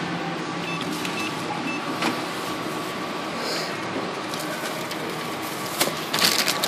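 Steady hum of a supermarket self-checkout, with a few short faint electronic beeps in the first second or so from the chip-and-pin card terminal. Near the end a plastic carrier bag rustles and crackles as shopping is bagged.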